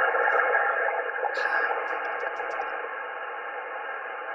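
Static hiss from a Yaesu FTDX10 HF transceiver's speaker, squeezed into a narrow voice-width band as on single-sideband, with a few faint steady tones in it. It fades slowly.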